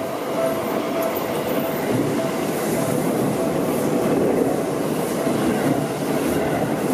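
Seibu Ikebukuro Line commuter electric train running along the platform close by, a dense rumble of wheels and running gear with a thin steady whine, growing a little louder a few seconds in as the cars go past.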